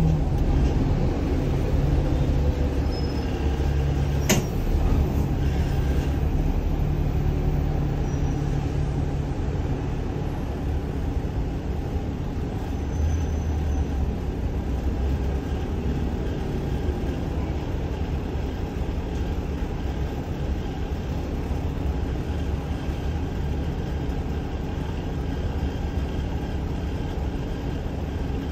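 Double-decker bus running, heard from inside the lower deck: a steady low engine and road rumble whose hum shifts a little in pitch. A single sharp click comes about four seconds in.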